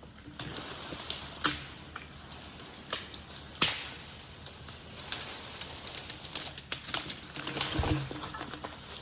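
Dry brush and twigs crackling and snapping in an irregular run of sharp cracks, the loudest about three and a half seconds in, as a dragged log moves through the underbrush.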